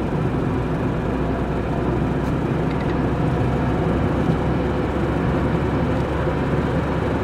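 Steady engine and road noise heard from inside the cab of a Renault Kangoo van driving at road speed.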